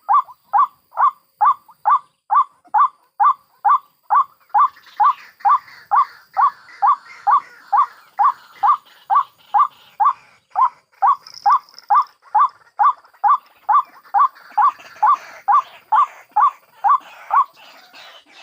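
White-breasted waterhen calling: a fast, even series of short loud notes, about two to three a second. From about four seconds in, fainter, higher chattering calls run underneath.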